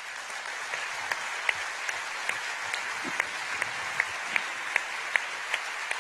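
An audience applauding steadily, with a few close, sharper claps standing out at an even pace of about two or three a second.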